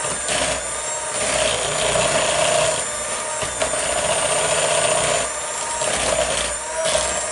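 An electric kitchen appliance motor running continuously with a steady hum and whine, its loudness swelling and easing every second or two.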